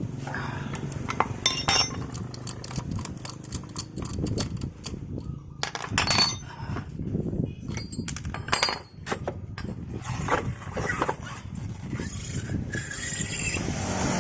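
Metal hand tools and scooter drive parts clinking and knocking in a string of irregular sharp clicks, as the rear CVT pulley assembly is taken apart.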